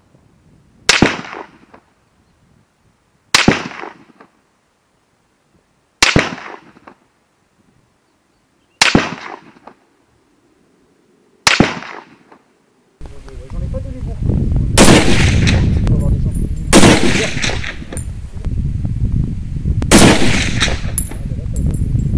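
Hakim semi-automatic rifle in 8x57 IS firing single shots. There are five sharp reports about two and a half seconds apart with silence between, then a steady low rumbling background comes in with three more shots.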